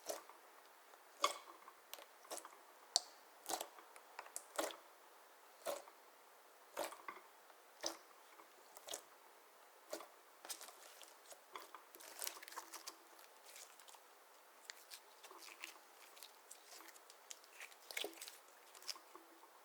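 Slime being squeezed and pressed by hand, giving irregular sharp sticky pops and clicks: about one a second at first, then denser clusters of smaller clicks in the second half.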